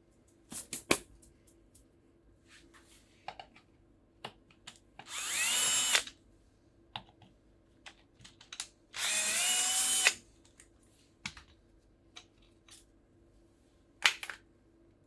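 Cordless drill-driver run twice, about a second each time, its pitch rising as it spins up and then holding, as it backs screws out during disassembly of an e-bike motor. Sharp clicks and knocks of tools being handled come before, between and after the runs.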